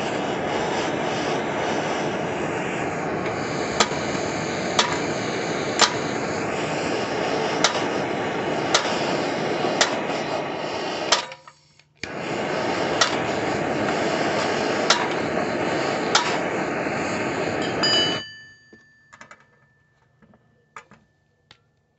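Torch flame running steadily as it heats the pulley on a mower engine's crankshaft to free it, with sharp metal taps about once a second. The flame cuts out briefly about eleven seconds in, comes back, and stops for good about eighteen seconds in, followed by a short metallic ring and a few faint clicks.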